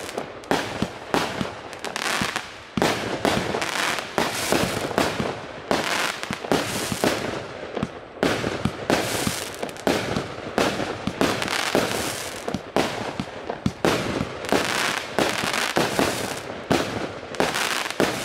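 OC7850 "Bakhchisarai" 80-shot, 1-inch firework cake firing in rapid sequence. Sharp bangs of shells bursting come about two to three a second over a continuous noisy wash.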